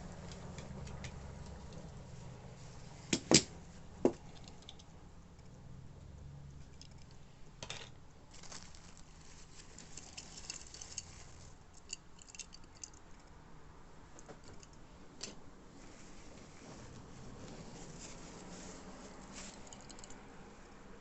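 Small die-cast toy cars and their packaging being handled: light rustling and tapping, with a few sharp clicks about three to four seconds in.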